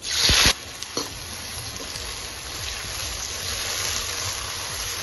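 Sliced onions hitting hot oil in a steel kadai: a loud burst of sizzling for about half a second, then steady frying sizzle with a few light spoon clicks.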